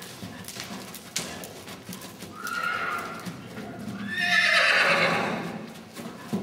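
Horse whinnying: a shorter call about two and a half seconds in, then a long, loud whinny about four seconds in. Its hoofbeats sound underneath as it canters on the arena footing.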